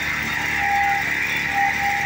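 Vari Agzat walking tractor's Jikov 1453 engine running steadily while pulling a cultivator through soil, with a few brief high-pitched tones coming and going.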